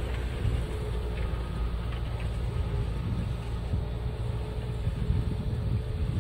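Kubota M7060 tractor's diesel engine running steadily, a low rumble with a faint steady hum above it.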